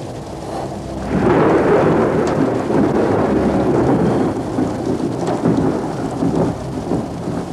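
Rain falling with a rumble of thunder that swells about a second in, then steady rain.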